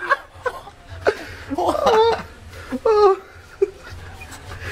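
A man laughing, with two louder bursts of laughter in the middle.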